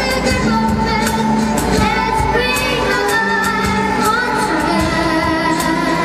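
A live children's band performing a song: a girl singing into a microphone over guitars, with percussion keeping a steady beat.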